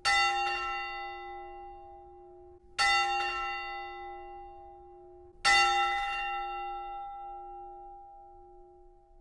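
A bell struck three times, about two and a half to three seconds apart, at the same pitch each time, each strike ringing on and slowly fading, the last one still sounding at the end.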